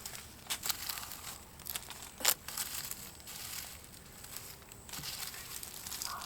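Old nest debris and crinkly candy wrappers being pulled out of an open wall cavity by hand, rustling and crackling irregularly. One sharp, loud crackle comes a little over two seconds in.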